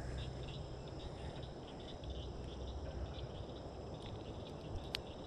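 Faint outdoor ambience with insects chirping steadily in a high register, and a single short click about five seconds in.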